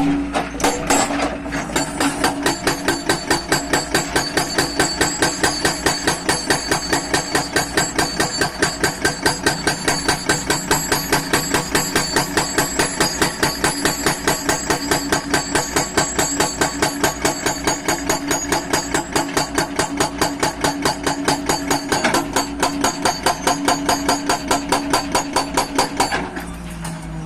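Hydraulic breaker on a Hyundai 210 excavator hammering in a fast, steady rhythm of about four to five blows a second, with the excavator's engine running underneath. The hammering stops about a second before the end.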